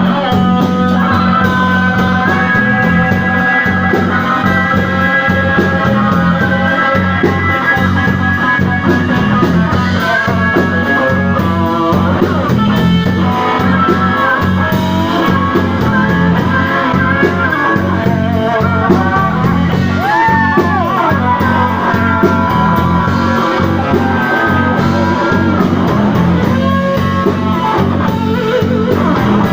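Blues-rock band playing live, with guitar to the fore over a steady bass line; a held note bends up and back down about twenty seconds in.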